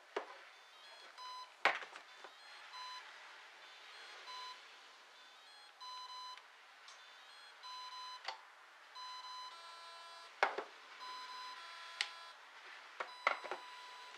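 Brushless RC boat ESC sounding its programming-menu beeps after being plugged back in: short single beeps about every second and a half, with a quick run of higher-pitched tones near ten seconds in. A few sharp clicks fall between the beeps.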